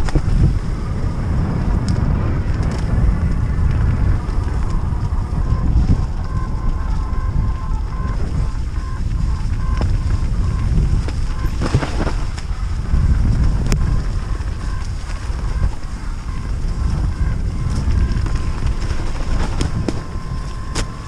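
Wind buffeting the microphone with a low rumble from riding fast down a dirt trail, broken by a few sharp knocks as the bike hits bumps.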